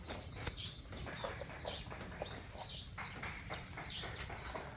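Birds chirping: repeated short, high chirps, each falling in pitch, coming every second or so.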